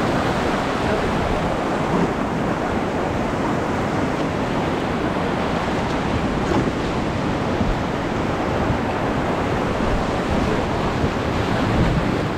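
Fast river water rushing steadily around a raft, a continuous loud wash of white-water noise.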